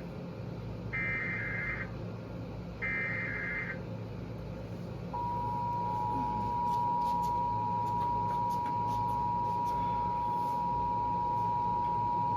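Emergency Alert System broadcast opening: two short, buzzy digital SAME header data bursts about a second apart, then about 5 seconds in the steady two-tone EAS attention signal (853 and 960 Hz) starts and holds. This announces an incoming severe thunderstorm warning.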